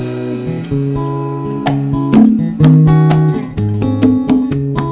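Instrumental break of a live folk song. An acoustic guitar is strummed and picked through a run of changing chords, with hits on cymbal and hand drums.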